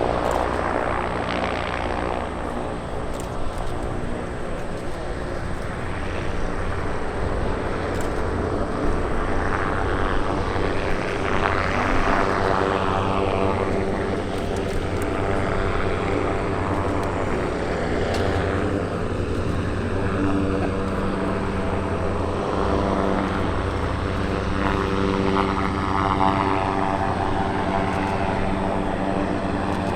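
Goodyear semi-rigid airship's piston engines and propellers droning steadily as the airship manoeuvres low, climbing out and turning. The drone is a stack of steady tones whose balance shifts a few times.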